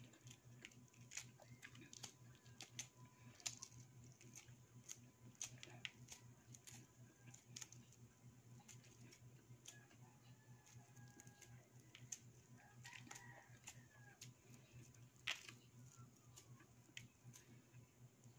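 Faint crackling clicks of eggshell being peeled off a hard-boiled egg by hand. A rooster crows faintly in the distance about ten to thirteen seconds in.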